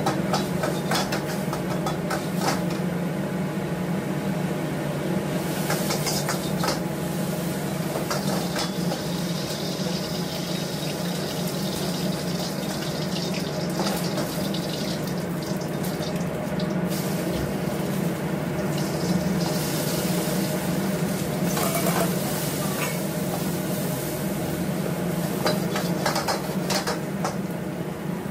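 Fried rice stir-fried in a wok on a gas wok range: a metal spatula and ladle scrape and clank against the wok again and again. Under it is a steady rush of running water from the range's tap and a constant low hum from the burner.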